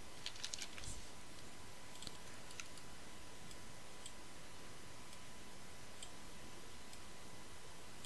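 Computer mouse clicks over a faint steady hiss: a quick cluster of clicks about half a second in, then single clicks roughly once a second.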